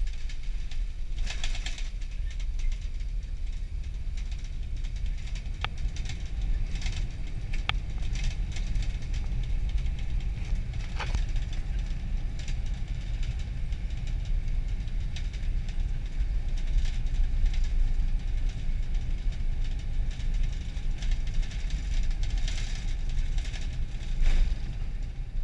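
Cabin of an Emirates Airbus A380 on the landing roll: a heavy, steady low rumble from the runway, starting abruptly just before touchdown is complete, with a few brief cabin rattles.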